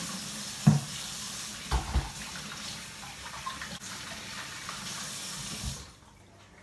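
Kitchen tap running into a sink while food is rinsed, with a few knocks against the sink; the water is shut off near the end.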